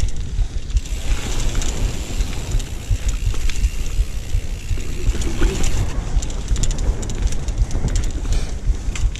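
Mountain bike coasting down a wet dirt trail: tyres rumbling and the bike rattling and clicking over bumps, more rattles in the second half, with wind buffeting the action camera's microphone.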